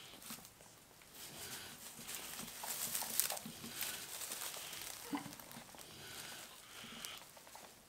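Straw rustling and a newborn piglet being handled at a lying sow's teats, with faint animal noises from the pigs.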